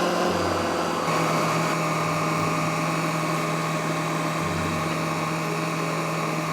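Electric blender running steadily, puréeing chickpeas, tahini, olive oil and cooking water into hummus.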